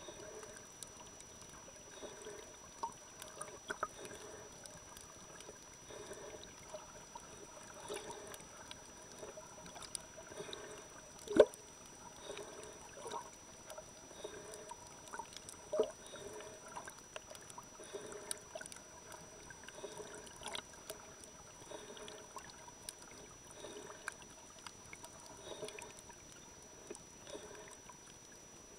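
Water moving around a camera held underwater: muffled, irregular sloshing and gurgling with scattered faint clicks. There are two sharper knocks, the louder about 11 seconds in and another near 16 seconds, and a faint steady high tone runs throughout.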